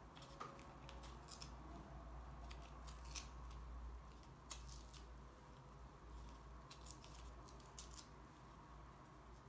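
Coloured paper being torn into small pieces by hand: faint, scattered short rips and crinkles, some coming in quick clusters.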